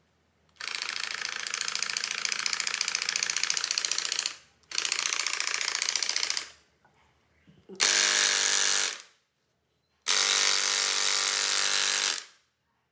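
Homemade jigsaw driven by a 24 V 775 DC motor, run four times in short bursts with its freshly oiled blade mechanism reciprocating freely and nothing being cut. The first two runs are a fast rattling buzz; the last two carry a steady pitched whine.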